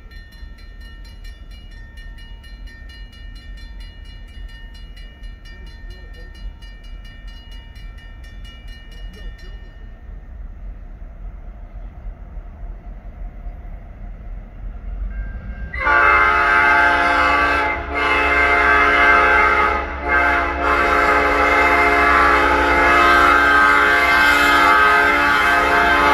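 Grade-crossing bell ringing rapidly and stopping about ten seconds in, while a diesel locomotive's low rumble slowly grows. About six seconds later the locomotive's multi-note air horn sounds loudly for the crossing: two blasts broken by short gaps, then one held blast.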